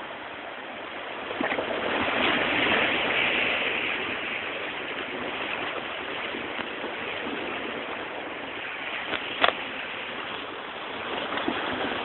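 Sea waves washing against shore rocks, a steady rushing that swells about two seconds in and then eases. A single sharp click comes near the ten-second mark.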